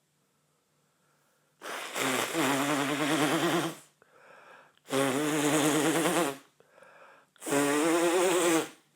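A man blowing his nose hard three times, each blow a long honking buzz of about two seconds, with quick breaths in through the nose between blows.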